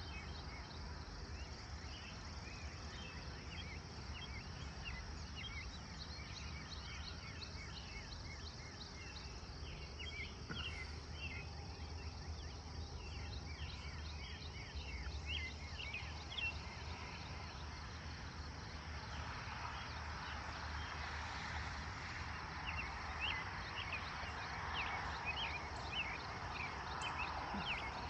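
Rural dawn ambience: many short bird chirps over a steady high drone of insects, with a low hum underneath. About two-thirds of the way in, a broader rushing noise swells and the chirping grows busier.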